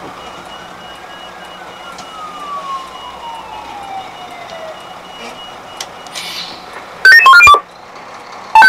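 A siren winding down, its single tone sliding steadily lower over a few seconds, over a steady vehicle hum with a regular high-pitched beeping. About seven seconds in, very loud electronic music cuts in in short bursts.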